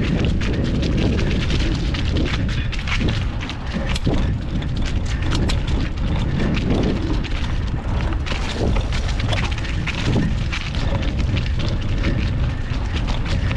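Mountain bike riding over rough trail, recorded from a handlebar-mounted GoPro: heavy wind rumble on the microphone with a constant crackle of clicks and knocks from the tyres and bike over the ground.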